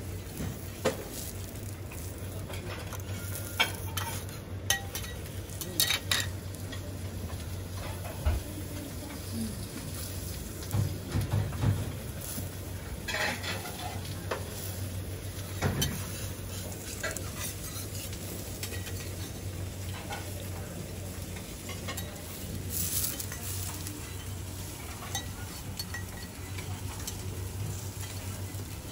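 Potato wedges sizzling on a steel teppanyaki griddle, with metal spatulas scraping and clicking against the hot plate every few seconds. A steady low hum runs underneath.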